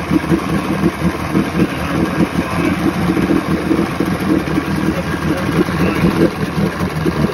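Force 120 two-stroke outboard idling steadily, with its cooling water splashing from the exhaust ports into the test tank. The thermostat is open and the water is flowing freely, which the owner takes as a good sign of no blockage or overheating.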